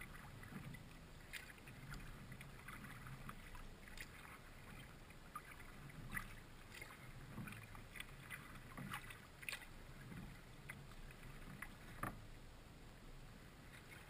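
Faint sounds of a kayak being paddled on calm water: the paddle blades dipping in with small splashes and scattered drips, and water softly washing along the hull.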